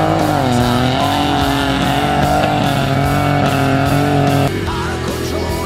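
Off-road race truck engine running hard as it passes, mixed with rock music with electric guitar and a steady drum beat. The loud engine-and-music tone drops away suddenly about four and a half seconds in.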